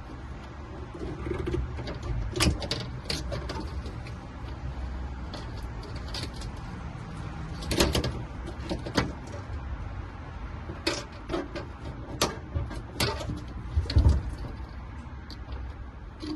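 Scattered clicks and knocks, a dozen or so at irregular times, the loudest about 2.5, 8, 13 and 14 seconds in, over a steady low rumble.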